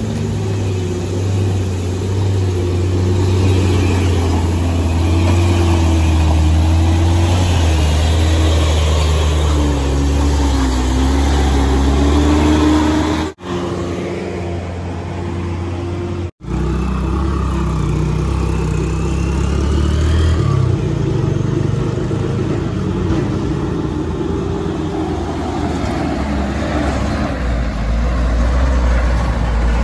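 Diesel engines of a bus and then a light truck labouring uphill on a steep, rutted dirt climb, the engine pitch rising and falling as the throttle is worked. The sound cuts out twice, very briefly, in the middle.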